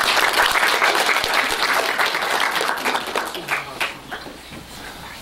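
Audience applauding, the clapping thinning and dying away about four seconds in.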